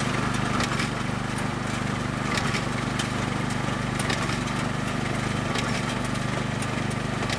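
Kubota RJN55 reaper-binder running steadily while cutting rice. Over the engine's even drone come irregular sharp clicks and clatter from the cutting and bundle-tying mechanism.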